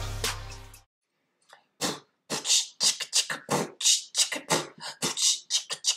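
Drum-backed background music fading out in the first second. After a short gap comes a rapid string of short, hissy vocal bursts from a woman, several a second, with no clear words.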